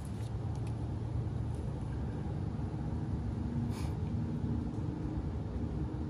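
Steady low rumble with a faint hum, like an engine or machinery running in the background, with a single light click about four seconds in.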